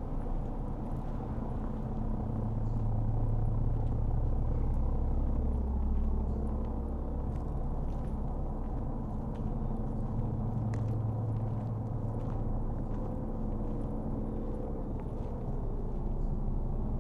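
A steady low rumble that swells a little twice, with a faint hum and a few light ticks over it.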